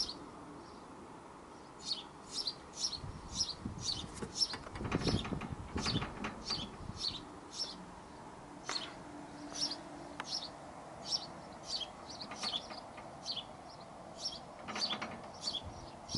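A small bird chirping over and over, short high chirps about twice a second. There is a brief low rumble about five seconds in.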